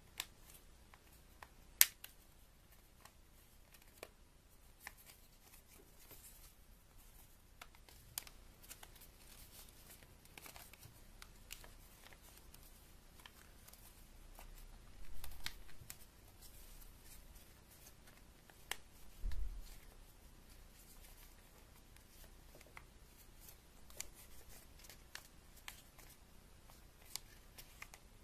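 A sheet of origami paper being folded and creased by hand: faint rustling with scattered sharp crinkles and clicks. There are two dull thumps around the middle.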